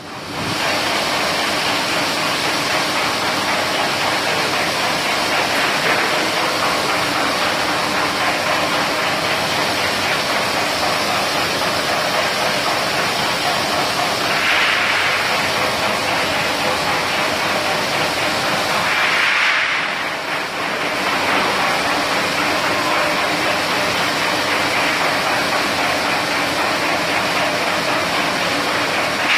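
Continuous fish fryer running: a steady hiss of fish sizzling in hot oil over a low machine hum. The hiss swells twice, about halfway through and again a few seconds later.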